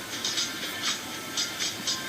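Background music with a steady beat of crisp percussion ticks.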